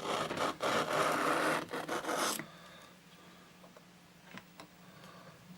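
Penknife blade stroked across a small wet whetstone with a water slurry, giving a few rasping scrapes in quick succession. The scraping stops about two seconds in, leaving only a few faint clicks.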